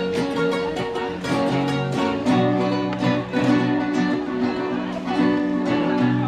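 Two acoustic guitars playing together, a steady run of plucked notes and strummed chords in a Spanish-language ballad, with no one singing.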